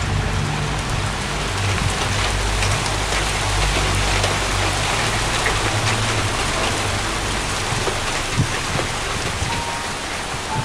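Steady freezing rain falling on ice-glazed branches, an even patter dotted with many small ticks of drops. A low steady hum sits underneath for the first half and fades out.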